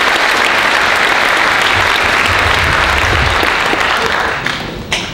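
Audience applauding at the close of a talk, the clapping thinning out near the end.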